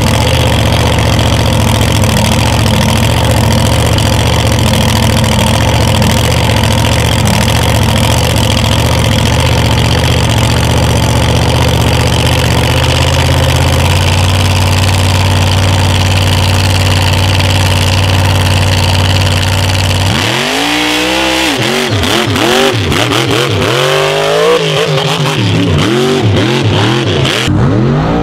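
The 1520-hp King Sling mega truck's engine idling steadily, its note shifting slightly about 13 seconds in. From about 20 seconds it revs up and down hard in repeated rising and falling sweeps as the truck sets off.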